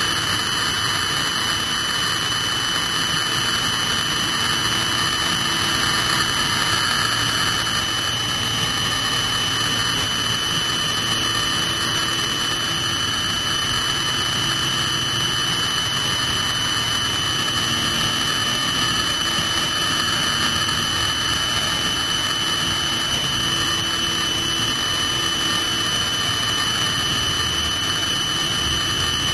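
A military helicopter's turbine engine running on the ground: a steady high-pitched whine over an even rushing noise.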